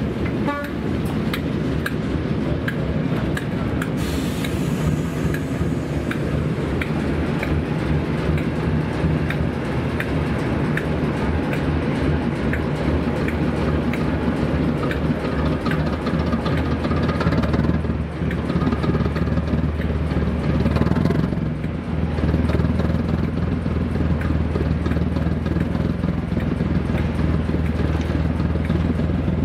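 Diesel train on the move: the locomotive's engine runs steadily while the wheels click over the rail joints.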